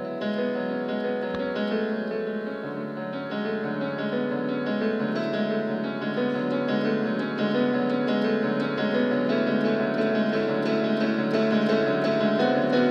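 Piano music, with layered notes that hold steadily, growing gradually louder.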